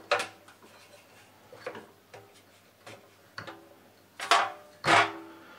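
Rubber V-belt being worked by hand onto the metal step pulleys of a bench drill press to shift it to its lowest speed: scattered light taps and clacks, the two loudest about a second before the end.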